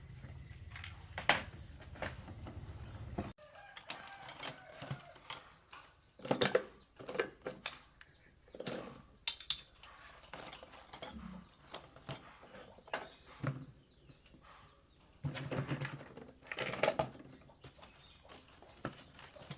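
Chickens clucking, among many scattered clicks and knocks. A steady low hum runs underneath for the first three seconds or so, then cuts off suddenly.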